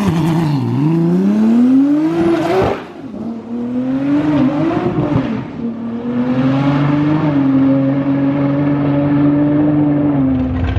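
Drag-racing car engine revving hard under acceleration. Its pitch climbs, falls sharply about three seconds in as at a gear change, climbs again, then holds a fairly steady tone.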